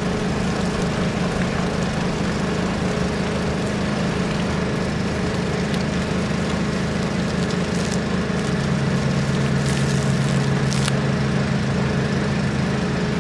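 An engine running steadily, its hum shifting slightly in pitch a little past halfway.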